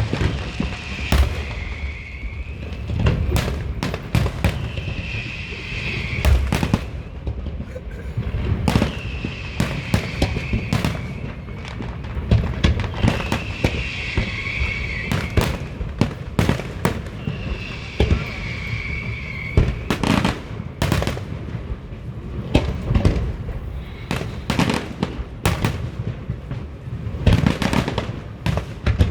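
Fireworks display: a continuous series of sharp bangs and crackling bursts over deep booms.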